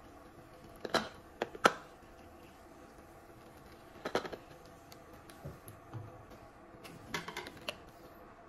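Light plastic clicks and taps in three short clusters, from a plastic funnel and bottle knocking against the plastic top of a lead-acid car battery as its cells are filled.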